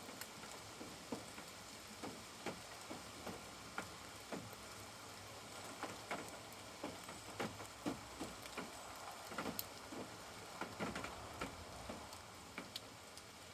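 Rain dripping on a caravan: irregular single drops tapping over a faint steady hiss, coming thicker for a while around the middle.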